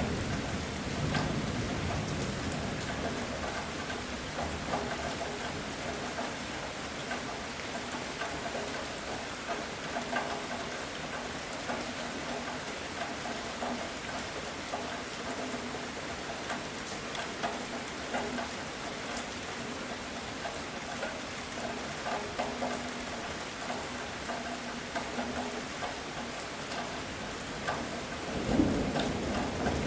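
Heavy rain falling steadily, with many close drops pattering on surfaces. Thunder rumbles low early on and rolls in louder near the end.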